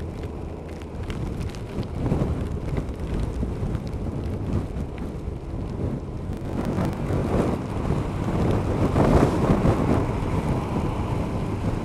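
Wind buffeting the microphone of a riding motorcycle, with the Kawasaki ZZR1200's inline-four engine running steadily underneath. The wind swells in gusts about two seconds in and again in the second half.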